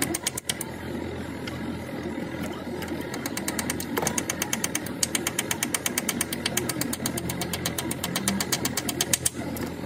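Hand socket ratchet clicking in a fast, even run, about eight clicks a second, as a nut is turned during a steering track rod replacement. After a brief burst at the start it runs from a couple of seconds in until shortly before the end.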